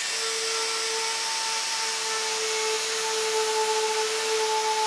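Makita plunge router running at steady speed with a constant whine, its V-groove bit cutting a groove along a wooden headboard as it is pushed along a parallel fence.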